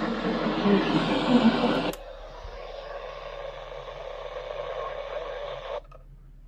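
Weather radio receiver hissing with static. The static drops sharply in level about two seconds in, carries on quieter, then cuts off suddenly near the end.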